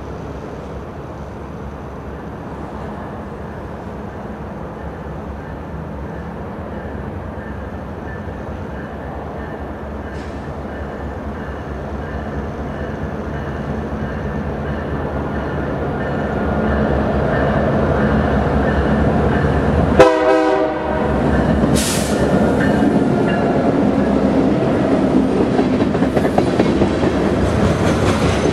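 BNSF diesel freight locomotives approaching and passing, their engine drone growing steadily louder. About 20 s in comes a brief, loud blast of the train horn. Tank cars then roll by with wheel clatter on the rails.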